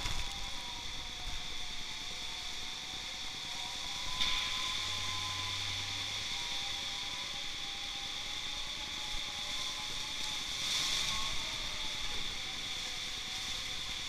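Typhoon wind and heavy rain: a steady hiss with a faint whistle that wavers up and down in pitch, swelling louder about four seconds in and again near eleven seconds.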